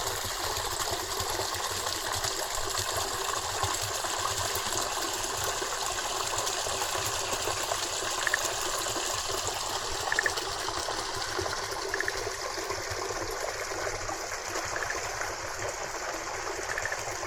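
Running water of a forest stream flowing steadily, with a few short, faint high notes repeating about every two seconds in the second half.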